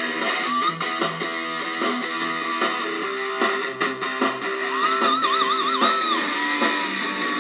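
Cort X6 electric guitar played through a Zoom G1Xon multi-effects pedal: a lead lick of quick single notes, then a bent note held with wide vibrato about two-thirds of the way through.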